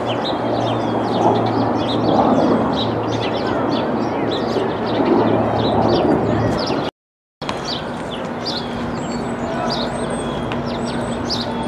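Small birds chirping many times over a steady outdoor background hum. The sound cuts out for about half a second about seven seconds in.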